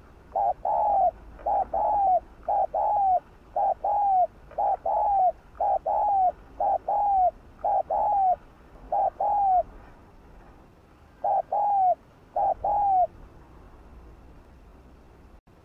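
Spotted dove cooing: a long run of short coos in quick pairs, each note dropping at its end, with a pause about ten seconds in and the calling stopping after about thirteen seconds.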